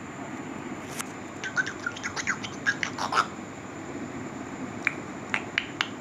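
African grey parrot making short chirps, clicks and brief whistled pips: a quick run of chirps about a second and a half in, then a few sharp clicks near the end.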